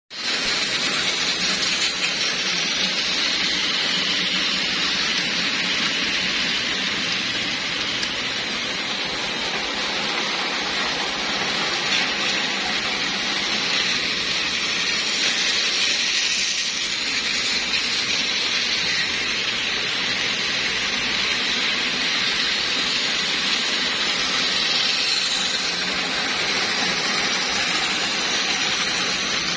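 Several battery-powered plastic toy trains running on plastic track: a steady whirring and rattling of small motors and wheels that holds without pause.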